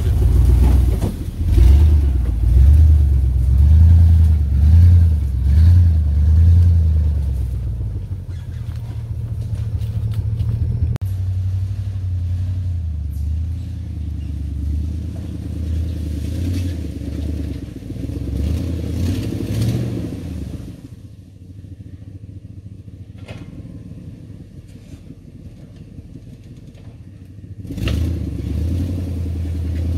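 1996 GMC Sierra pickup's engine running as the truck crawls over a rough dirt trail, its low note rising and falling with the throttle, in strong pulses about once a second at first. The sound drops to a fainter, distant rumble past the middle and comes back louder near the end.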